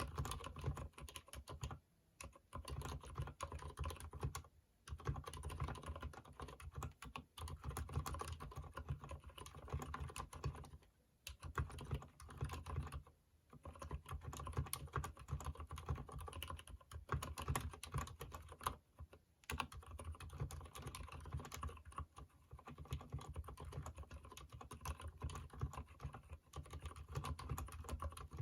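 Fast, continuous typing on a mechanical keyboard with Cherry MX Silent Red switches that have been lubed: soft, muted keystrokes with a dull low thud, broken by a few short pauses.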